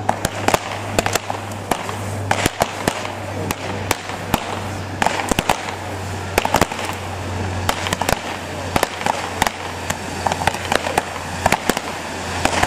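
Fireworks going off: a dense, irregular series of sharp pops and crackles from sparkling fountains and rising comets, over a steady low hum.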